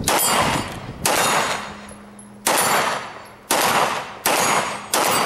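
CZ Shadow 2 9mm pistol firing six shots at an unhurried pace, roughly one a second, each sharp report trailing off in a short echo.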